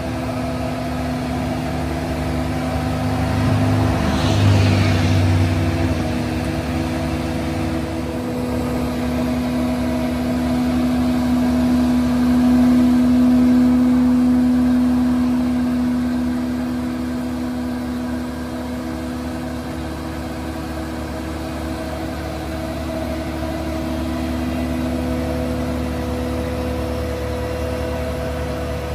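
Engine of a large heavy-duty forklift running steadily while it carries a heavy load, a hum of several steady tones that swells for a few seconds in the middle. A brief hiss about four seconds in.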